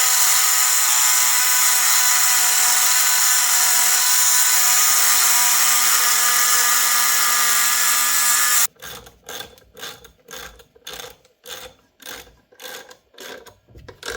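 A power cutting tool running steadily with a high whine as it cuts an old bolt down to length, stopping abruptly about two thirds of the way in. Then a run of short scraping strokes, about two a second.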